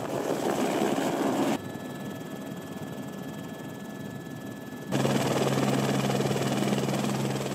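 Helicopter running, its rotor and turbine engine heard as a steady noise. The sound changes abruptly twice as the shots cut: quieter in the middle, then a steady low hum over the engine noise in the last few seconds.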